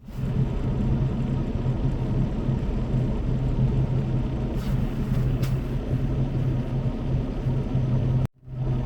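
Semi-truck engine and road rumble heard from inside the cab while driving: a steady low drone with a constant hum. It drops out abruptly for a moment near the end.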